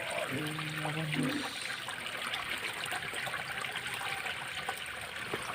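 Water trickling steadily in a small drainage ditch. A brief steady low tone sounds for about a second near the start.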